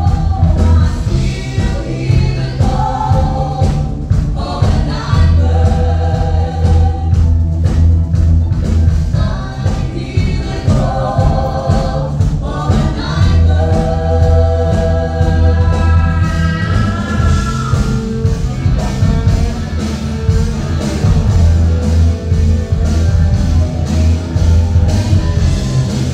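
A woman singing with a live rock band (electric guitar, bass guitar, keyboard and drums), recorded from the audience, with a heavy bass. Her long held notes waver, and the singing stops about two-thirds of the way through while the band plays on.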